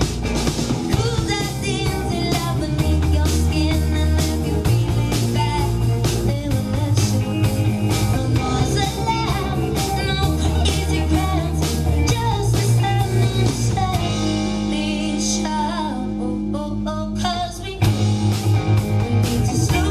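Live rock band playing: hollow-body electric guitar, a second electric guitar, electric bass and drum kit, with a woman singing lead. Near the end the cymbals and drums drop away for a couple of seconds, then the full band comes back in louder.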